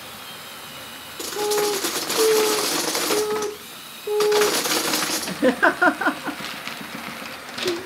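Loose 2x2 plastic LEGO bricks clattering and rattling as the blade of a LEGO Technic Cat D11 bulldozer shoves them across a table, in two spells with a short pause between, mixed with brief repeated hums of the model's electric motors.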